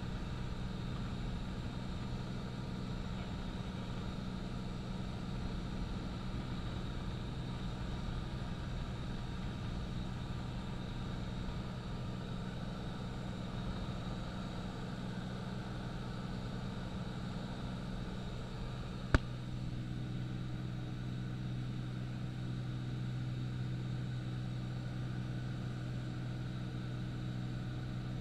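Light aircraft's piston engine and propeller droning steadily, heard inside the cabin. A single sharp click comes about two-thirds of the way through, after which the drone's low note shifts slightly.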